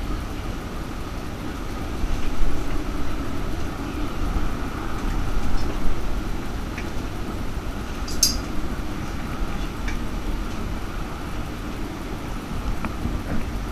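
Stadler Variobahn light-rail tram running along its track, heard from inside the front of the car: a steady low rumble with a few small clinks and rattles, the sharpest about eight seconds in.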